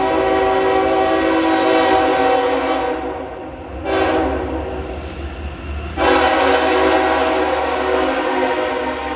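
Diesel freight locomotive's air horn sounding a long blast that stops about three seconds in, a short blast about a second later, then another long blast from about six seconds in. A low, steady rumble of the passing locomotives runs underneath.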